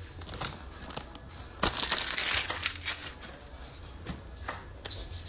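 Packaging crinkling and rustling as it is handled, with a dense crackle loudest for about a second in the middle and a few sharp clicks around it.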